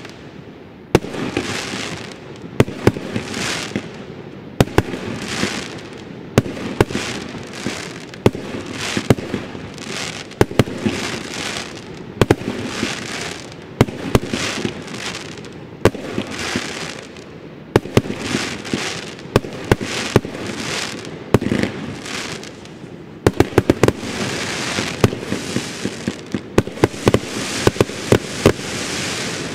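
A 132-shot firework cake firing shot after shot. Each shot is a sharp crack trailed by about a second of hissing noise. Toward the end the cracks come in quick runs.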